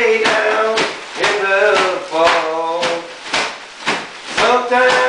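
A plastic garbage bag being squeezed and crinkled as a rhythm instrument, with a sharp crackle about twice a second in a steady beat. Over it a man's voice carries a tune in held, bending notes.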